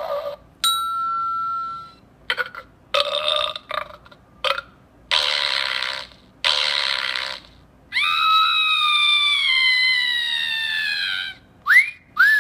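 A toy sound effects machine playing its canned effects one after another through its small speaker. First comes a steady beep, then several short clips and two noisy bursts of about a second each. A long falling whistle-like tone follows, and two quick rising-then-falling glides come near the end.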